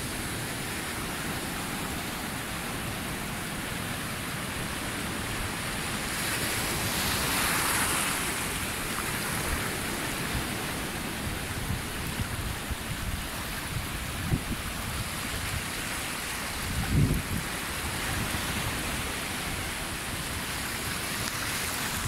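Surf washing over a shallow rocky reef flat: a steady rush of foaming water that swells about a third of the way through. A brief low thump comes near the end.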